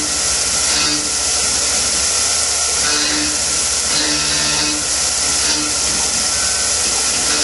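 Tormach PCNC 1100 CNC mill cutting 6061 aluminium soft jaws with a carbide end mill under flood coolant: steady loud hiss of the coolant spray over the spindle and cutting noise, with a low hum that comes and goes about once a second as the machine moves. The sound cuts off suddenly at the very end.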